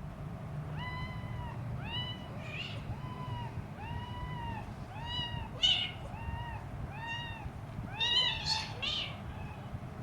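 Three-week-old kitten meowing repeatedly in short, high-pitched cries, about one a second, some of them harsher and louder: a hungry kitten crying for its mother.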